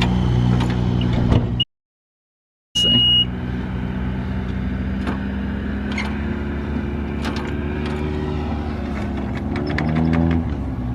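Caterpillar D5 bulldozer's diesel engine running steadily at idle, heard from the cab, with scattered light clicks. The sound cuts out completely for about a second early on. The engine note rises briefly near the end.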